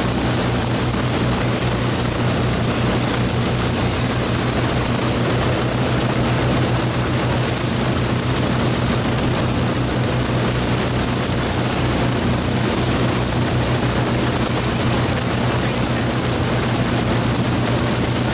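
Packard-built Rolls-Royce Merlin V-12 engines of an Avro Lancaster running steadily on a ground engine run, propellers turning, a deep even drone with no change in pitch.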